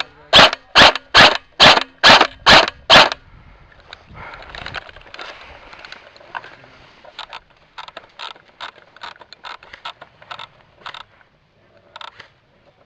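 A quick run of very loud, evenly spaced knocks, about two and a half a second, ending about three seconds in, followed by lighter, irregular crackling and scraping.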